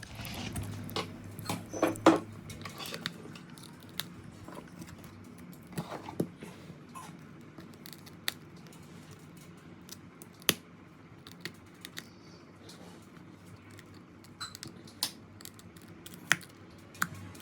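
Irregular sharp clicks and cracks of an iPhone 11's back glass being chipped and broken with a glass breaker tool, a few strikes much louder than the rest.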